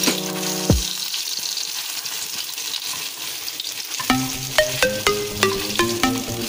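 Ground-fish pieces sizzling in hot oil in a nonstick wok as a metal slotted spatula stirs and turns them. Background music with a steady beat comes in about four seconds in.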